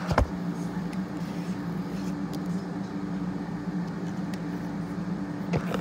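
Steady low electrical hum from an appliance in the room, with a couple of knocks from the phone being handled right at the start and another near the end.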